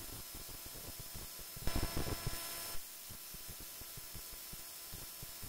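Steady background hiss and hum, with a brief bump and rustle about two seconds in that lasts about a second and stops abruptly.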